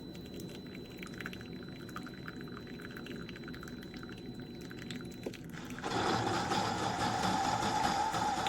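Tastyle single-serve coffee maker brewing: a steady low hum with faint crackling, then from about six seconds in a louder rush of coffee pouring into the cup.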